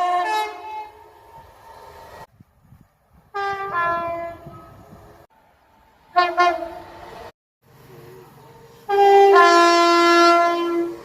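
Two-tone train horns sounding in several separate blasts, each stepping between a higher and a lower note: one blast ends about half a second in, another sounds around four seconds, a short toot comes about six seconds in, and a long blast comes near the end. Between the blasts there is a quieter rumble of the train, and the sound cuts off abruptly in places.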